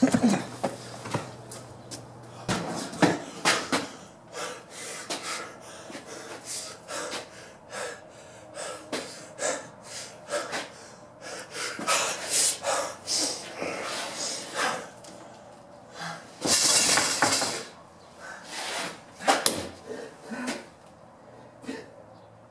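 Irregular clatter and knocks of objects being handled, with a longer rushing noise about seventeen seconds in, over a faint steady hum.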